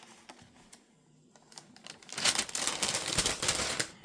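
Wrapping paper in a sneaker box rustling and crinkling as it is handled: a few faint clicks at first, then loud, dense crackling from about two seconds in.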